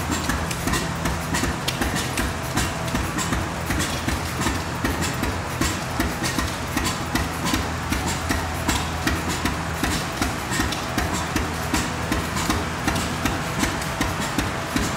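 Several antique stationary gas engines running together: a busy, overlapping run of exhaust pops and clicks over a steady low hum.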